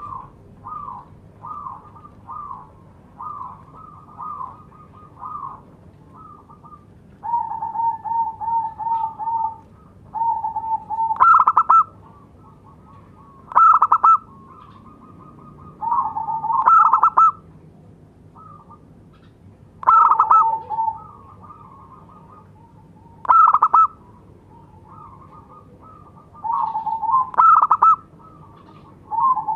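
Zebra dove (local perkutut) calling: a run of short staccato coos, then from about seven seconds in, repeated phrases of quick low coos that end in a few loud, higher notes, about every three seconds.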